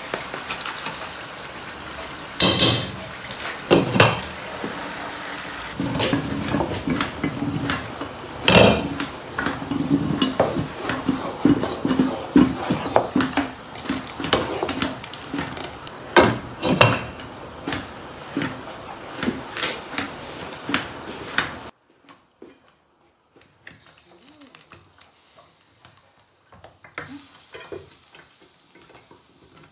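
Spoons working at a cooking pot: a metal spoon scraping and tapping ground crayfish out of a plastic tub into the pot, then a wooden spoon stirring the soup, with many clinks and knocks against the pot. The sound drops abruptly to a faint background about two-thirds of the way in.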